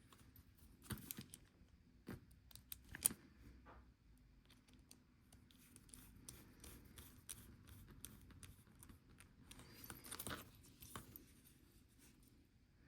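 Faint scattered clicks and scrapes of a small screwdriver working tiny bezel screws into a Casio G-Shock G-2300's resin bezel and case, with a sharper click about three seconds in and a scratchy stretch around ten seconds.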